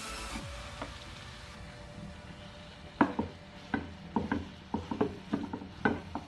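A spatula stirring a thick barfi mixture in a pan on the stove, knocking and scraping against the pan in irregular strokes about twice a second, starting about three seconds in.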